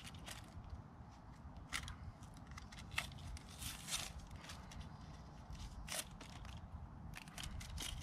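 Packaging crinkling and rustling in irregular crackles as a new bow saw blade is unwrapped by hand, over a steady low rumble.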